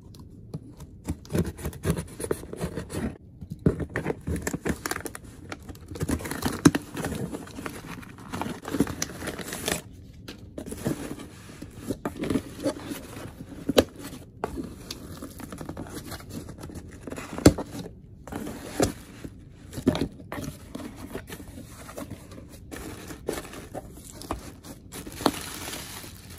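Packing material from a shipping box crinkling and rustling as it is handled and pulled apart to unwrap products, with many irregular sharp crackles and light knocks. The sound pauses briefly about ten seconds in and again near eighteen seconds.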